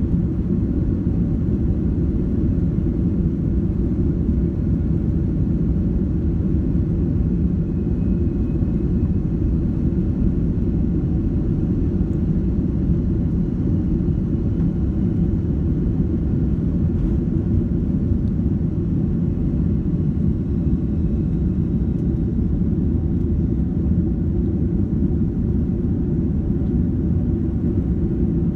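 Steady low rumble inside the cabin of a Boeing 767-300ER, the engines and airflow heard from a rear seat, holding even with no change in pitch or level.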